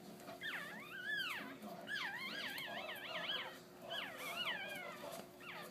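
Newborn Pomeranian puppies squeaking and crying in a string of high, wavering calls, one of them a fast warble in the middle, over a faint steady hum.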